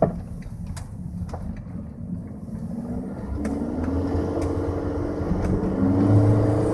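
Volkswagen Jetta 1.8T's turbocharged four-cylinder engine and road noise heard inside the car, the engine pitch rising from about three seconds in as it accelerates. A sharp knock at the very start and a few fainter ticks follow over the road.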